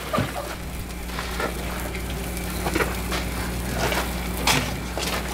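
Food sizzling on a space heater used as a makeshift griddle, a soft steady frying sound under a low steady hum, with a couple of faint clicks as hands work at the cooking surface.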